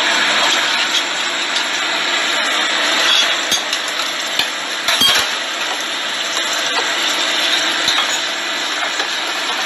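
Three-cup chicken wings in their sauce bubbling in a frying pan over a gas flame, as the sauce is brought to the boil before low-heat braising. The sound is a steady rushing noise with a few light clinks.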